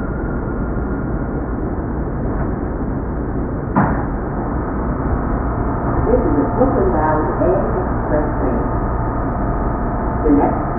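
NYC subway train running: a steady rumble with a single sharp knock about four seconds in. From about six seconds, wavering ringing tones ride over the rumble.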